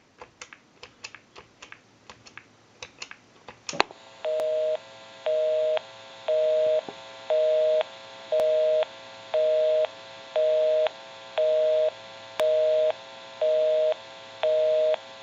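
Light clicks while the number is dialed on the telephone, then a North American busy signal: a low two-note tone beeping on and off about once a second, half a second on and half a second off.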